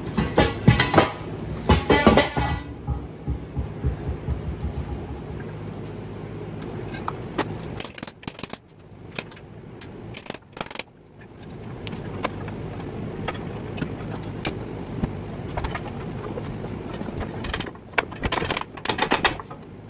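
A heavy metal end bell of a 50 hp three-phase electric motor clanking as it is worked off the housing, with several loud metal knocks in the first couple of seconds. Later a steel pry bar scrapes and knocks against the motor housing as the other end is pried loose, with a cluster of knocks near the end.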